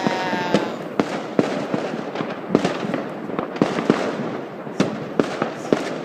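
Many New Year's fireworks going off across a town: about ten sharp bangs at irregular intervals over a continuous crackle.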